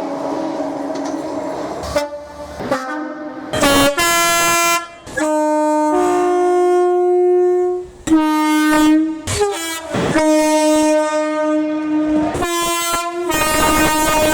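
Train horn played as a tune: after a couple of seconds of train running noise, a long series of loud horn notes switching between a lower and a higher tone, some short blasts and some held for a second or two.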